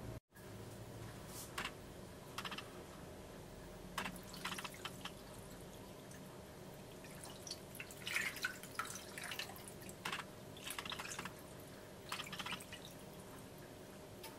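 Chili-seasoned rice water stirred with a spoon in a ceramic bowl, then poured from the bowl into a pot of kimchi, splashing and dripping in short spurts that are loudest about eight seconds in, over a faint steady hum.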